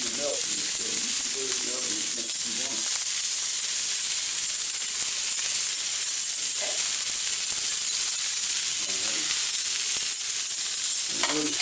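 Steaks searing in hot oil in a tri-ply stainless steel frying pan, sizzling steadily with a dense, even hiss.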